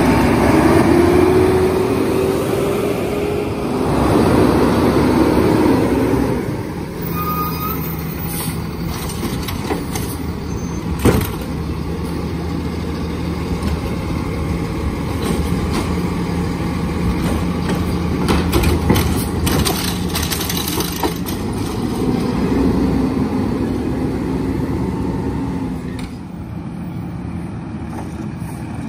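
Kenworth garbage truck with a Curbtender automated side-loader arm: the diesel engine rises in pitch in the first few seconds, then a steady hum runs while the arm lifts and dumps a cart. There is a sharp knock about eleven seconds in and some clattering around twenty seconds. The engine rises again shortly before the sound drops away.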